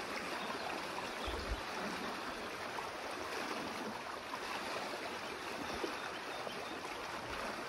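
Small woodland creek flowing: a steady rush of water.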